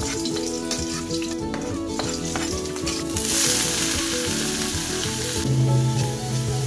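Garlic and onion sizzling in hot oil in a wok. About three seconds in, the sizzle jumps much louder as sliced bitter gourd (ampalaya) is tipped in, and a spatula then stirs it. Background music plays underneath.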